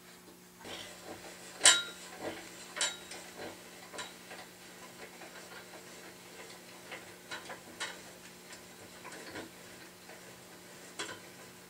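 Metal-on-metal clinks and taps as drill press parts are handled on the steel column: one sharp ringing clink about a second and a half in, a second a second later, then scattered lighter clicks.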